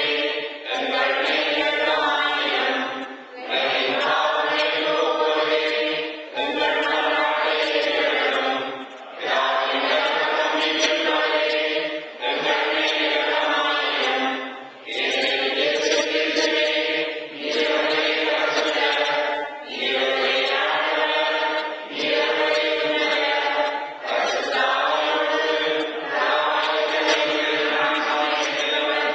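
Voices singing a church chant together, phrase by phrase, with a short breath pause about every two seconds.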